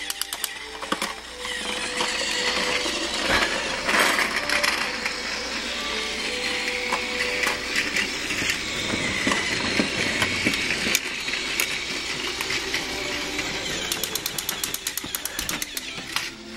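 Battery-powered toy train running on plastic track: a steady motor whir, with a fast run of regular clicks near the end.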